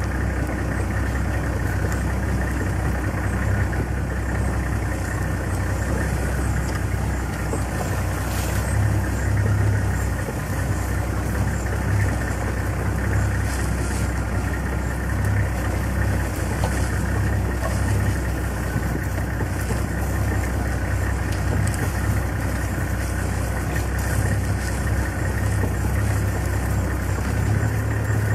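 Safari game-drive vehicle's engine running steadily, a low drone heard from on board as the vehicle moves.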